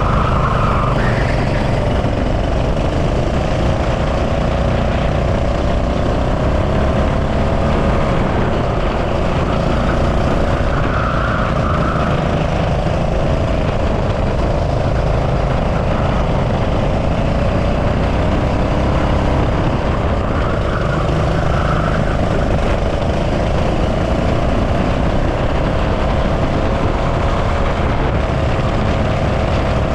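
Go-kart engine running hard at racing speed, its note rising and falling as the kart accelerates and slows for corners, with rushing wind and rumble from the body-mounted camera at speed.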